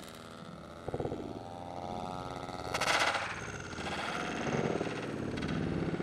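Engine of a radio-controlled Seagull Models Lazer 200 aerobatic plane running with a wavering pitch, with a loud surge about three seconds in as the plane comes down. Its engine mount has vibrated loose in flight.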